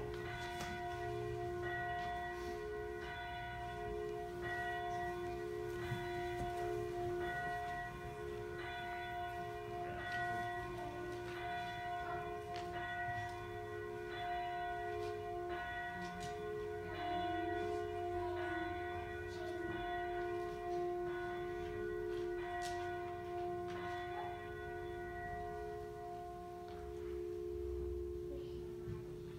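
Church bell ringing, struck over and over about once a second, with several bell tones sounding together. It fades out near the end.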